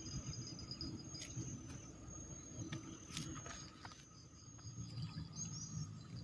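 Insects trilling in steady high tones that stop and start in long stretches, over a low rumbling background, with a few faint clicks near the middle.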